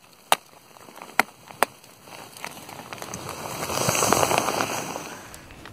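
Hatchet chopping at a dead log: three sharp strikes in the first two seconds, then a longer crackling, rasping sound as a slab of bark and wood is split and pried off, loudest about four seconds in.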